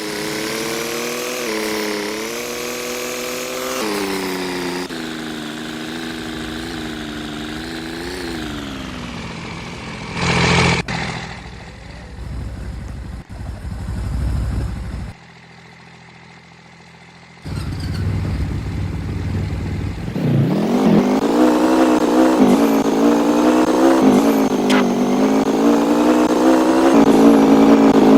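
Motor vehicle engine running, its pitch rising and falling for the first several seconds; it drops away near the middle, then comes back louder and steadier for the last third.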